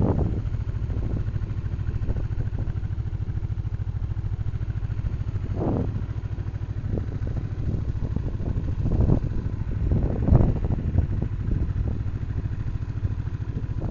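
Honda Magna motorcycle engine running steadily at low revs, with a few brief louder swells partway through.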